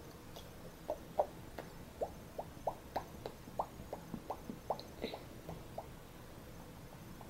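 A boy making a run of hollow mouth pops, about three a second for some five seconds, each one dropping slightly in pitch.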